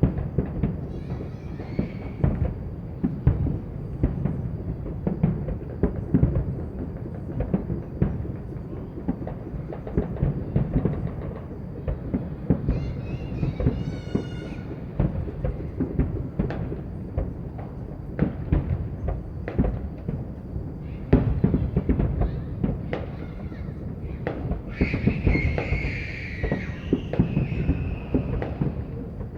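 Fireworks and firecrackers going off without pause, a dense, uneven stream of bangs and cracks over a low rumble. Brief pitched sounds rise over the bangs about halfway through and again near the end.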